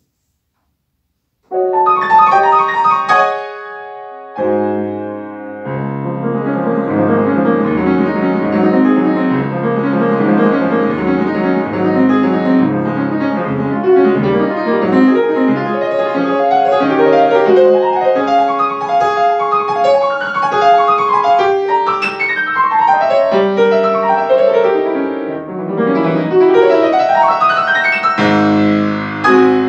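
Grand piano played solo in a classical piece: after a second and a half of near silence it opens with loud chords, pauses briefly with notes ringing away, then runs on in fast, continuous passagework.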